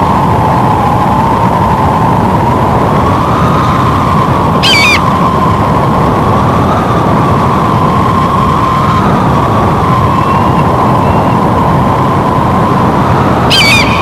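Loud wind howling steadily, its whistling pitch wavering slowly up and down. Two brief high-pitched bald eagle calls cut through it, one about five seconds in and one near the end.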